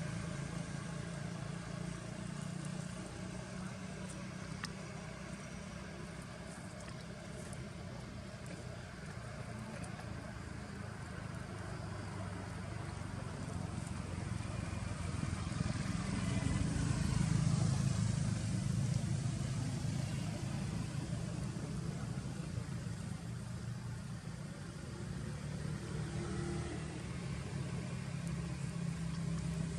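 Low, steady engine hum, as of motor traffic, that swells louder about halfway through, eases off, and builds again near the end.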